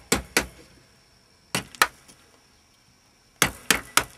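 Wooden mallet striking a half-inch firmer chisel, chopping small pieces of waste from a lime-wood blank: about seven sharp knocks in groups of two or three, cleanly cutting without splitting the wood.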